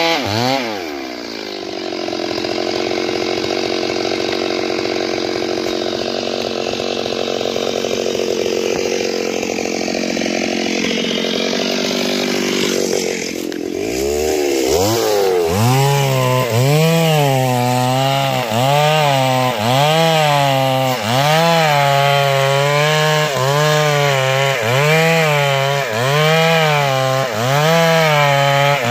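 Two-stroke chainsaw cutting into a tree trunk. Its engine drops in pitch just after the start and runs steadily for about twelve seconds, eases off briefly, then from about fifteen seconds in its pitch rises and falls about once a second as it works through the cut.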